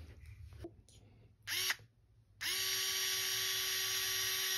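Small cordless electric screwdriver motor whining: a short burst of about a quarter second, then a steady run from about two and a half seconds in, holding one pitch.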